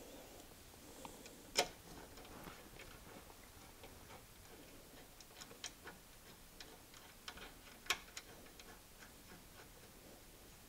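Faint, irregular clicks and light metal taps from hand tools and brake parts being handled, with the two loudest clicks about a second and a half in and near eight seconds.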